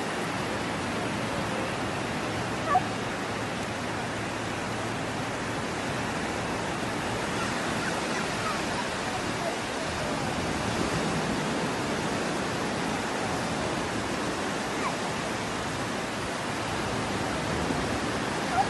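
Steady wash of sea surf breaking on a sandy beach, an even hiss with no clear rhythm. A short sharp sound stands out about three seconds in, and another near the end.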